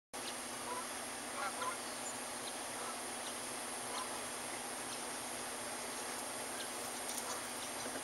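Steady outdoor background hiss with a few faint, short calls from distant birds, clustered around a second and a half in and again near four seconds.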